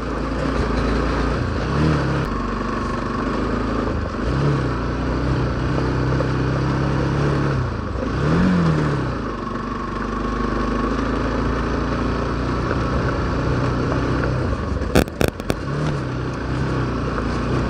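Motorcycle engine running as the bike rides a rough, broken track, its note rising and falling again and again with the throttle. There are a few sharp knocks about fifteen seconds in.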